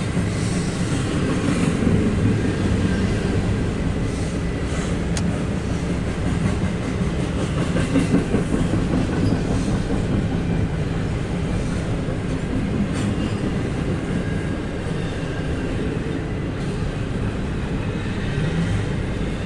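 A train passing close by: a steady rumble of wheels on the rails with clickety-clack over the rail joints.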